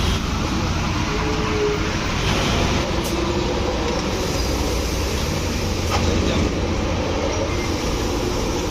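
Steady road-vehicle noise: a heavy vehicle's engine and tyres making a continuous low drone, with no horn sounded.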